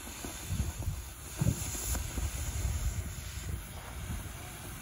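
World Class Fireworks 'Breathless' ground fountain spraying sparks with a steady hiss, with a couple of sharp pops about a second and a half in. Wind buffets the microphone.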